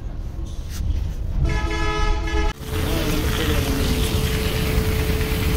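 A vehicle horn sounds for about a second and is cut off sharply. It is followed by a steady hiss of water spraying from a hose over a car radiator, with a steady hum underneath and a low rumble throughout.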